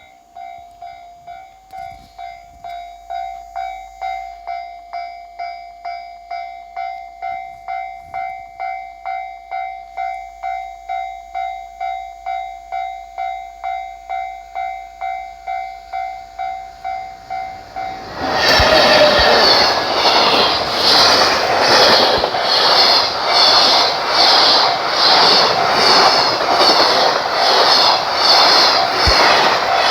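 Japanese level-crossing warning bell ringing about twice a second. About 18 seconds in, a freight train hauled by an EH500 electric locomotive reaches the crossing and passes with loud, rhythmic wheel clatter that drowns out the bell.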